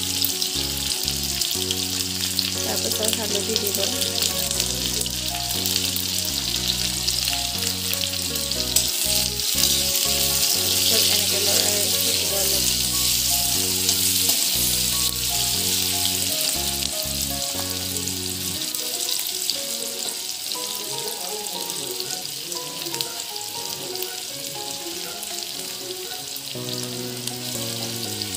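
Chopped onion, garlic and green chili sizzling and frying in hot oil in a wok, stirred with a metal slotted spoon; the sizzle is loudest around the middle. Background music plays underneath.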